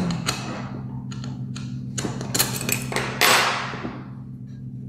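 Knocks and clinks of metal and glass as an explosion-proof light fitting's toughened glass cover and wire guard are handled, about ten sharp taps with one ringing clink about three seconds in. A steady low hum runs underneath.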